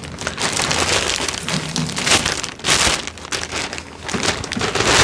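Thin plastic packaging bag crinkling and rustling in uneven bursts as it is handled and a backpack is pulled out of it.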